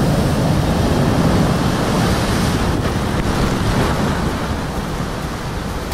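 Ocean surf breaking and washing over a rocky shoreline ledge, the foam surging in close. It swells to its loudest about a second in, then eases.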